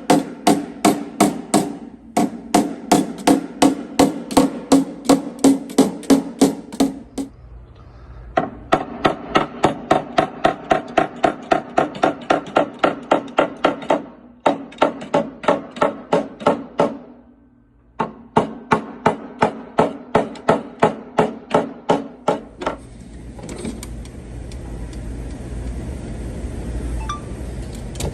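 Body hammer tapping rapidly on a sheet-metal car quarter panel, about three ringing strikes a second in several runs with short pauses. It is knocking down a high ridge below the wheel-arch line while a puller holds the panel under tension, to release pressure and draw the body line out. Near the end the tapping stops and a steady low noise remains.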